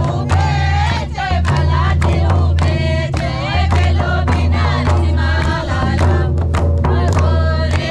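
Group singing a Nagpuri folk song in chorus to mandar drums, the two-headed barrel drums of Jharkhand, with hand claps; frequent sharp drum strokes under the voices.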